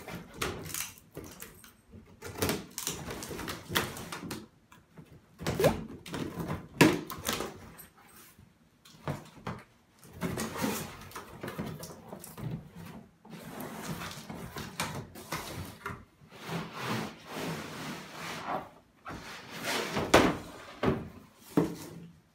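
Cardboard box being cut open and unpacked: the tape slit, flaps pulled back, cardboard rubbing and flexing, and plastic baby-bath parts scraping and knocking as they are lifted out, with several sharp knocks among the handling noise.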